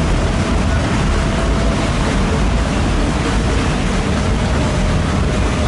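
Motorboat under way, a steady engine rumble mixed with water rushing and wind buffeting the microphone, with a faint steady whine throughout.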